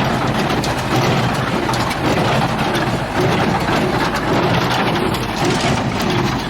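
International 784 tractor's diesel engine running steadily while driving an International 440 square baler at work baling hay.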